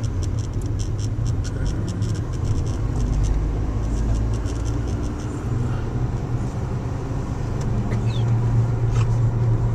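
Inside a moving car's cabin: a steady low engine and road rumble while driving.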